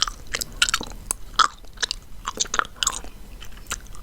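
Chewing gum being chewed with the mouth close to the microphone: a run of irregular, wet, sticky smacks and clicks.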